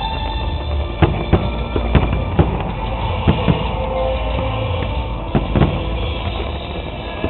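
Loud music with drums accompanying a fireworks display, with irregularly spaced sharp bangs from firework bursts through it.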